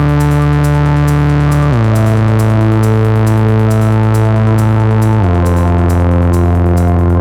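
Live electronic music: a sustained, buzzy synthesizer drone that steps down in pitch about two seconds in and again about five seconds in, over a steady stream of quick high ticks.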